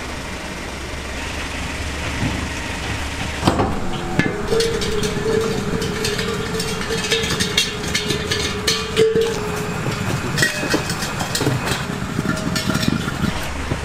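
Steel LPG gas cylinders rolled on their bottom rims across asphalt: a grinding rumble full of clanks and knocks, with a steady ringing tone from the cylinder for several seconds after a sharp knock about three and a half seconds in.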